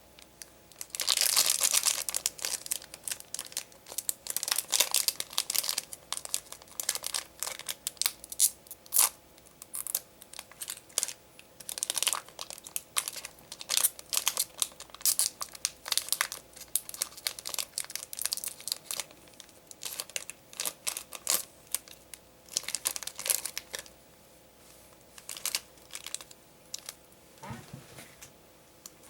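Foil trading-card booster pack crinkling and being torn open, then cards being handled and sorted in many quick crisp crinkles and clicks.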